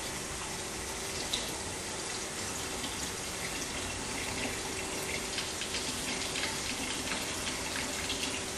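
Water poured from a bottle into diesel fuel in a glass beaker, trickling and splashing, with more and more small drips and splashes from about three seconds in. A faint steady hum runs underneath.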